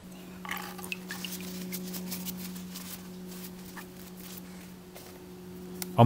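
Water dripping and splashing lightly in a plastic basin as a wet bicycle inner tube is moved about and lifted out of it, a series of small drips and splashes. A steady low hum runs underneath.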